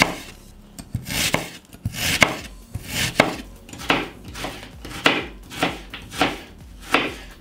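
Chef's knife slicing an onion on a wooden cutting board: a steady series of cuts, each ending in a knock of the blade on the board, a little more than one a second.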